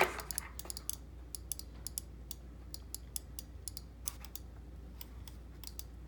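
Sharp plastic clicks of computer buttons being pressed, irregular and often in quick pairs, a few a second, with short pauses between runs.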